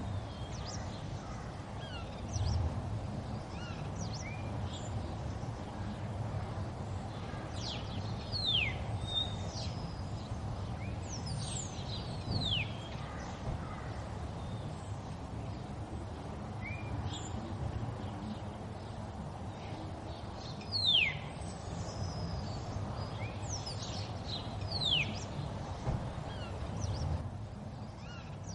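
Birds calling: a scatter of short, high chirps that sweep downward, one every second or two, the sharpest about two-thirds of the way through. Under them runs a steady low hum.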